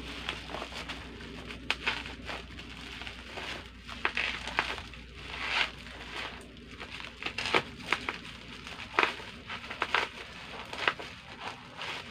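Plastic bubble wrap crinkling as it is cut open with scissors and handled, in a string of irregular sharp crackles and rustles.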